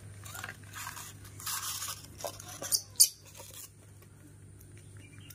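Handling noises around a plastic milk bottle: short rustling scrapes and one sharp knock about three seconds in, over a low steady hum.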